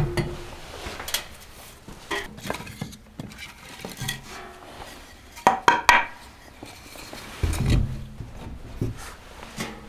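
Metal kitchenware clattering as it is handled: scattered knocks and clinks, a quick run of ringing clanks about halfway through, then dull thumps a little later.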